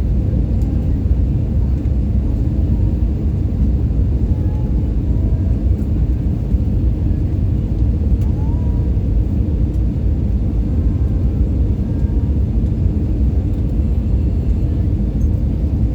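Airbus A320 cabin noise: a steady, loud low rumble of the jet engines and airflow, unchanging throughout.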